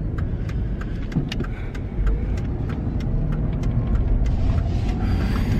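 Car cabin noise while driving: a steady engine and road rumble, with a scatter of light clicks. It grows slightly louder about two seconds in.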